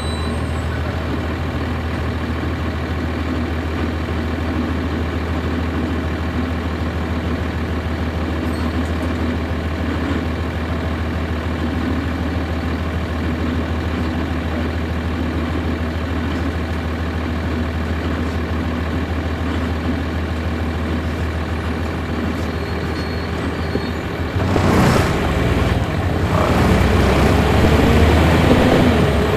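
Cummins ISC straight-six diesel of a 1999 NovaBus RTS transit bus, heard from on board, running with a steady low hum. About 25 seconds in there is a sharp hiss of air from the bus's air system, then the engine speeds up and grows louder, its pitch rising.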